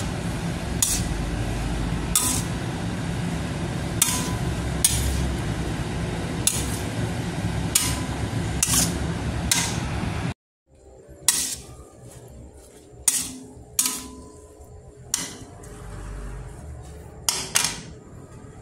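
Metal spatula clinking and scraping against a steel wok while stir-frying rice noodles, with sharp clanks about once a second. A steady low rumble runs under the first half and cuts off about ten seconds in.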